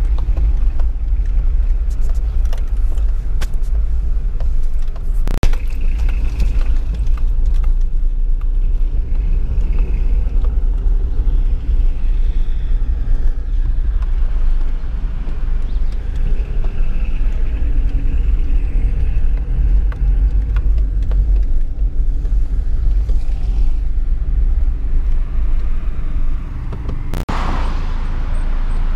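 Car interior noise while driving slowly: a steady low engine and road rumble heard from inside the cabin, with a few sharp clicks and a brief rush of noise near the end.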